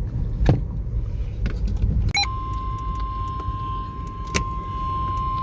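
NOAA Weather Radio 1050 Hz warning alarm tone, a single steady tone starting about two seconds in after a brief burst, signalling that a new warning is about to be read. It sits over a low steady rumble, with a sharp click near the start and another midway.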